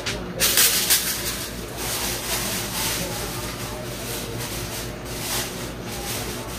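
Broom sweeping wet concrete, with a few loud swishing strokes about half a second in, then quieter scraping and rustling as debris is tipped from a dustpan into a plastic bag.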